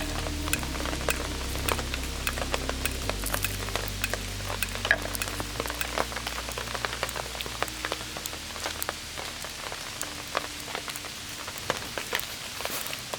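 A campfire crackling and popping, with many irregular sharp crackles. Low sustained background music notes fade out about eight seconds in.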